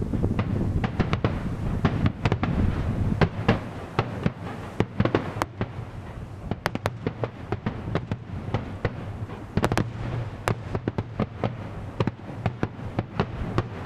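Fireworks display: aerial shells bursting in quick, irregular succession, a dense string of sharp bangs and crackles over a steady low rumble.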